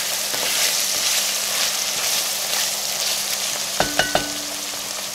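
Diced venison and ground spices sizzling in hot oil in a cast iron pot, stirred with a wooden spoon, with a steady frying hiss. A few sharp knocks come about four seconds in.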